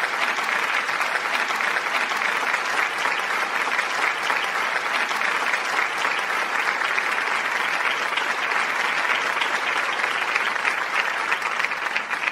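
Steady applause from a crowd, many hands clapping at an even level.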